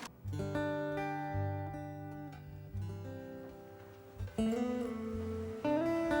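Background score played on acoustic guitar: slow, sustained chords that change every second or two.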